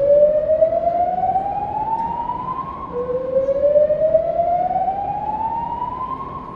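Hotel fire alarm system sounding a slow whoop alert tone: two rising sweeps, each climbing steadily for about three seconds and holding briefly at the top, the second starting about three seconds in.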